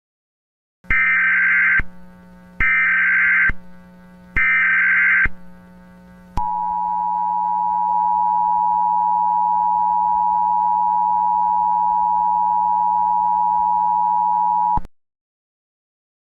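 Emergency Alert System tones for a National Periodic Test. Three short bursts of digital SAME header data about a second apart are followed by the steady two-tone attention signal, which runs for about eight seconds and then cuts off.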